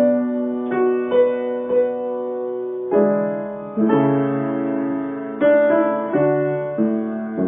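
Slow solo piano improvisation: held chords under a simple melody, with a new note or chord struck every half second to a second and a half, each left to ring.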